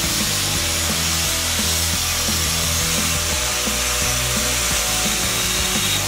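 Angle grinder cutting into a steel tube with an abrasive cut-off disc: a steady, unbroken grinding hiss. Background music plays underneath.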